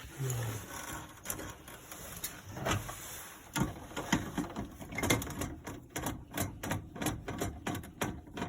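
Quick, irregular clicks and light knocks of hands and tools working on an HVAC unit's wiring and control board. They come several a second from about halfway in.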